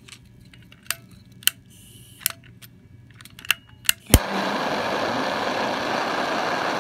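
A few light clicks, then about four seconds in a sharp click as a handheld gas torch lights and its flame starts a steady hiss. The flame is heating a fluxed silver solder joint so the balled-up solder will run.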